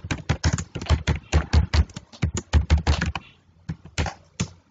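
Typing on a computer keyboard: a quick, dense run of key clicks that thins out to a few scattered keystrokes about three seconds in.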